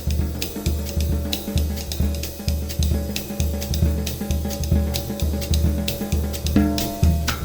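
Percussion groove on a drum kit: a steady bass drum beat about two a second under quick ticking cymbal and hi-hat strokes. A pitched ringing tone comes in near the end.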